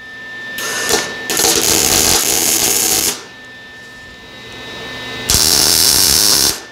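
MIG welder tacking a steel exhaust pipe joint, the arc running in two bursts: a longer one of about two and a half seconds starting under a second in, then a shorter one of about a second near the end.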